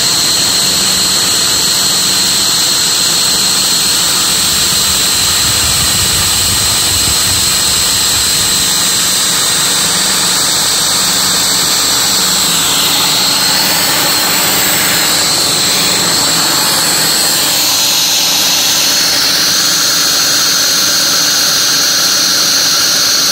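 Bridgeport milling machine's end mill cutting aluminium plate under CNC control: a loud, steady high-pitched whine over a dense hiss. The pitch dips briefly about halfway through and steps down slightly a few seconds later as the cut changes.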